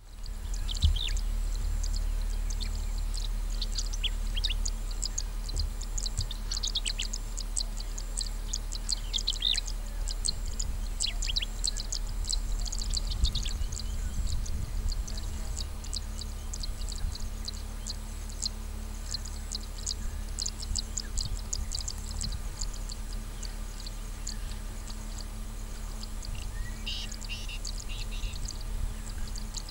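Many birds chirping, with short, high calls coming in quick succession over a steady low hum. A short cluster of lower-pitched calls comes near the end.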